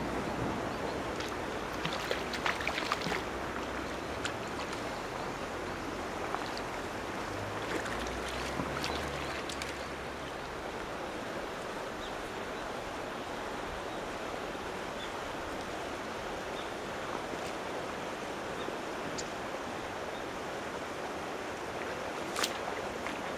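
Steady outdoor rushing noise with no clear single source, and a few light clicks and taps about two to three seconds in, around nine seconds in, and once near the end.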